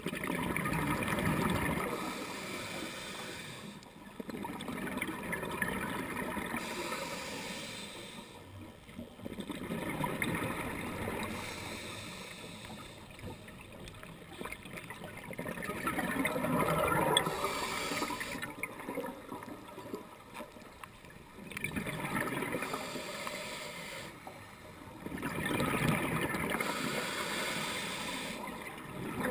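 Underwater sound of a scuba diver breathing through a regulator: exhaled air bubbles gurgle and rush in repeated bursts several seconds apart, with quieter stretches between breaths.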